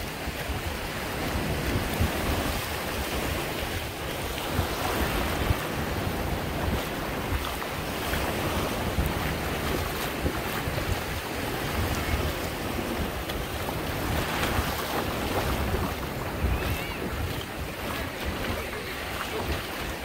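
Small waves breaking and washing up over wet sand in the shallows, a steady surf wash, with wind buffeting the microphone.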